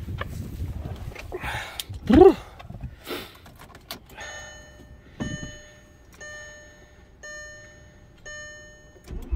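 Audi SQ5's electronic warning chime dinging about once a second, a single pitched ding each time. Before it, wind noise and a brief loud rising squeal about two seconds in.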